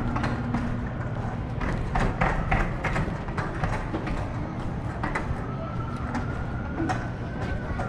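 Footsteps on a concrete sidewalk at a walking pace, about two steps a second, over a low steady rumble of city street traffic. A faint thin whine slowly rises and falls near the end.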